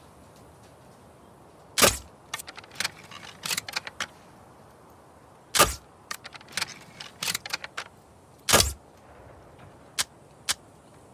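Crossbow sound effect: three loud, sharp snaps roughly three seconds apart, with lighter mechanical clicks and clatter between them and two small clicks near the end.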